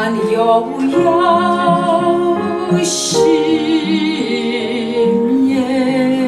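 Recorded vocal music played back over hi-fi loudspeakers: a singer holding long notes with vibrato over a sustained accompaniment.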